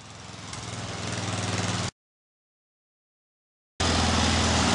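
Ride-on lawn mower engine running and growing louder for about two seconds. The sound then cuts out to dead silence for about two seconds and comes back running loud and steady.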